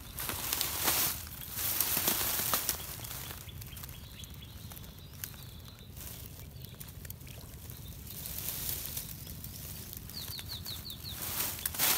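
Outdoor pondside ambience: a steady low rumble with swells of hissing noise in the first few seconds and again at the end. About ten seconds in, a bird gives a quick run of about six short falling chirps.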